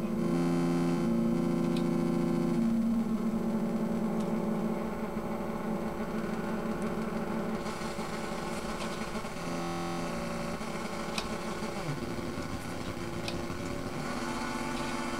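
Just Friends eurorack function generator sounding all six of its outputs at once, being tested after a RUN jack replacement: a buzzy electronic drone of several held pitches that shift in steps every second or two. About twelve seconds in, the pitch glides down.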